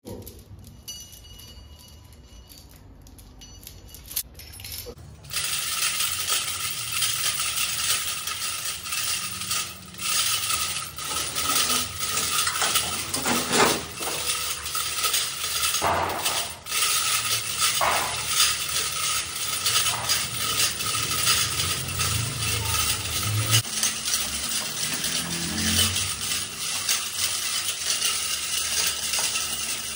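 Steel chains of a chain hoist clinking and rattling as a heavy steel disc is handled, with many sharp metal clicks and knocks. A steady workshop noise sets in about five seconds in.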